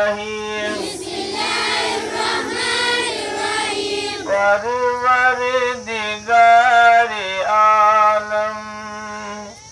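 A man singing long, wavering held notes into a microphone, leading a school assembly. A chorus of children's voices sings along together from about a second in until about four seconds in.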